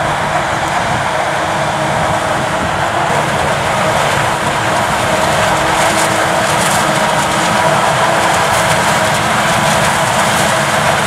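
Claas Jaguar 980 forage harvester running under load as it chops maize, a steady machine noise with a constant high whine, mixed with the engine of the Fendt tractor pulling the trailer alongside.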